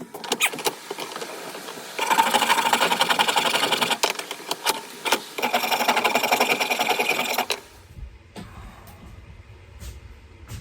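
Small power tool running in spurts as it takes wood off the cheeks of an axe handle, with a fast, even rattle. It cuts out about three-quarters of the way through, leaving a faint low hum.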